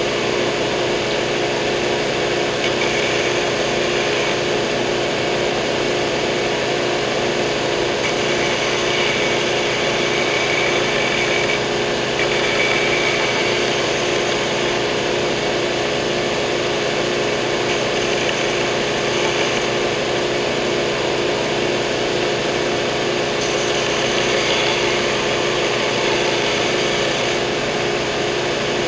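Stationary edge belt sander running steadily with a hum, while the edge and rounded corners of a hardwood cutting board are held against the moving belt. A gritty sanding rasp swells now and then as the board is pressed on and shifted.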